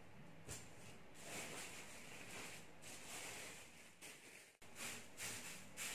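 Faint rustling of dried myrtle leaves and crinkling of a plastic sheet as the leaves are spread by hand, in soft brief swells; the sound cuts out for a moment a little past halfway.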